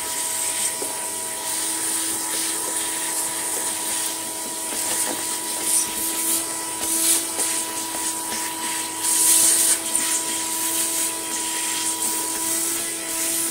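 Bench vacuum cleaner running with a steady motor whine and rushing air as its crevice tool sucks damp soil and grit out of another vacuum's bag compartment. Debris rattles and scrapes into the nozzle now and then, loudest about nine seconds in.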